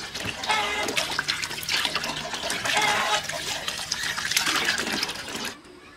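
Running and splashing water, with many small crackles and splashes, that stops abruptly about five and a half seconds in.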